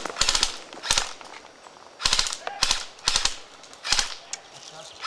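Airsoft rifles firing about six short bursts of rapid clicking shots, each burst a fraction of a second long.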